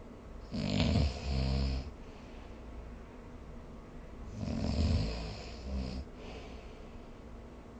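A sleeping person snoring: two snores about four seconds apart, each coming in two pulses.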